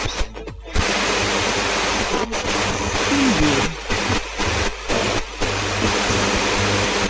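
Analogue FM radio being tuned across the dial: a loud hiss of static, cut by brief dropouts and crackles as the dial passes stations. A short warbling tone glides down about three seconds in.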